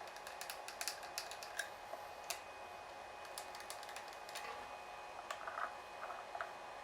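A series of irregular light clicks and taps, bunched at the start and again near the end, over a faint steady whine.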